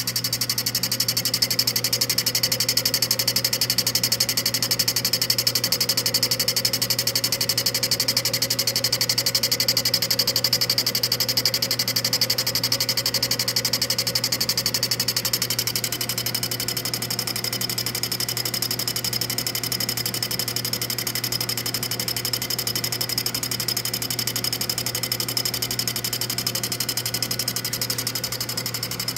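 Milling machine running with a carbide boring bar in a boring head cutting a radius into a bronze bar: a steady motor hum under a fast, even ticking of the cut, easing a little past the halfway point.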